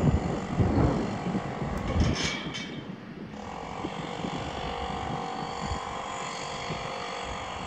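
Trains rumbling over the rails at close range, with a brief screech about two seconds in, dying away after about three seconds. A steadier run with a held whine follows as an electric locomotive approaches.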